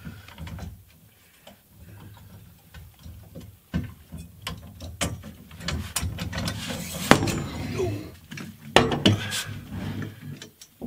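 Steel base of a Harbor Freight drywall lift being unfolded by hand: a run of metal clicks, rattles and clanks as the legs swing out, with several sharp knocks in the second half as they come to rest.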